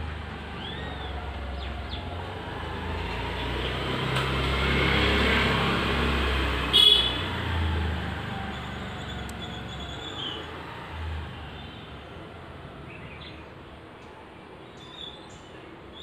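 A vehicle passing by: its noise and low rumble build to a peak about five to six seconds in, then fade away. A short, sharp, loud sound comes near seven seconds.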